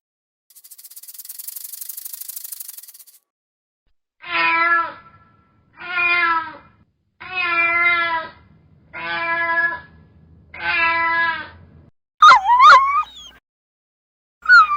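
A rasping, pulsing hiss for the first few seconds, then an animal calling five times, each call about a second long and wavering in pitch. Near the end come short high squeals that slide up and down.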